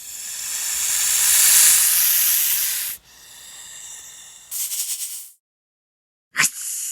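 Snake hissing sound effects, one after another: a long hiss that swells and cuts off sharply about three seconds in, a quieter hiss ending in a short quick pulsing burst, a brief gap, then a sudden sharp hiss near the end.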